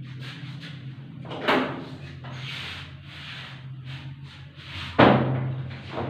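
Camera handling noise as the camera is moved and set steady: rubbing, then two sudden thumps, the second, about five seconds in, the louder. A steady low hum runs underneath.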